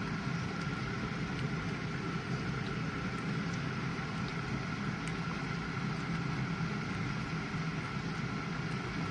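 GE dishwasher running mid-cycle: a steady hum with a rushing wash noise and a thin, constant high whine.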